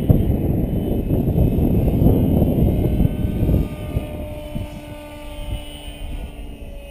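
Wind buffeting the microphone, heavy for the first few seconds and then easing, over the faint whine of an Align T-Rex 550 electric RC helicopter in flight, its pitch shifting slightly.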